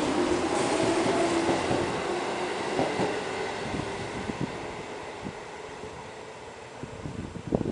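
Yellow Seibu Railway electric commuter train pulling out of the station: a steady tone over the noise of the cars rolling past, fading as the train draws away. A few short sharp sounds near the end.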